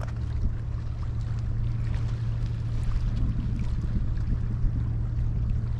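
Steady low hum over outdoor background noise, with a few faint clicks as a fishing rod is lifted from its rest and the reel handled.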